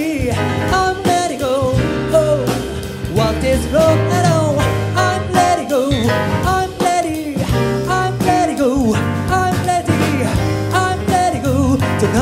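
Live jazz band playing with a male singer, his voice sliding up and down through the melody over bass and drums.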